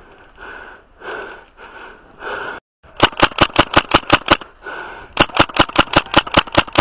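Tippmann airsoft rifle firing on full auto at about nine shots a second: a burst of about a second and a half starting about three seconds in, then after a short pause a second burst from about five seconds in. Before the firing there are only soft uneven sounds.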